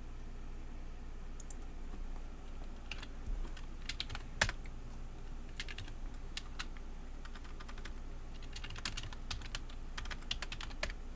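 Typing on a computer keyboard: short bursts of key clicks, three runs of them, over a steady low hum.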